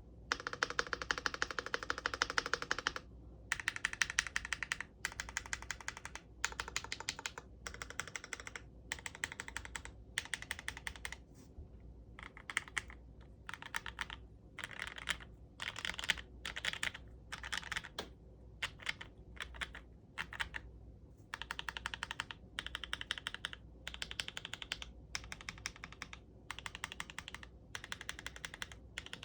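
Typing on a GMMK Pro mechanical keyboard with fully lubed and filmed 43 Studio Popu switches (65 g) and ABS keycaps: quick runs of keystrokes broken by short pauses.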